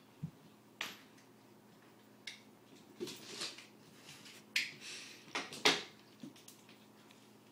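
Cats' paws and claws scrabbling and skidding on a wooden parquet floor as they pounce: scattered sharp clicks and short scratchy scuffles, loudest about five and a half seconds in.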